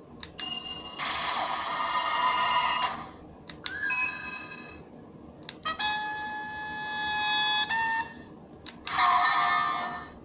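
Kamen Rider Hibiki DX transformation tuning fork (Henshin Onsa Onkaku) toy playing its electronic ringing sound effects through its small speaker, four in a row, each set off by a click of its switch. The sounds come from a replacement sound board taken from a candy toy, fitted after a battery leak ruined the original.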